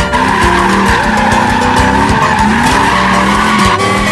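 Lowered Chevrolet Silverado pickup's engine revving up and down as its rear tyres spin and screech through donuts on pavement.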